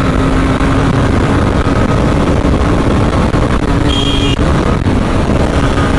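Motorcycle riding at speed: heavy wind buffeting on the microphone over a steady engine drone. A brief high-pitched tone sounds about four seconds in.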